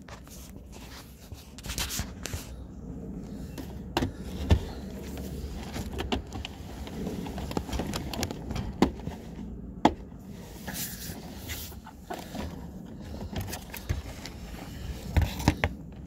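Plastic pet carrier being handled as its door is opened: scraping and rustling handling noise with scattered sharp plastic clicks and knocks, several close together near the end.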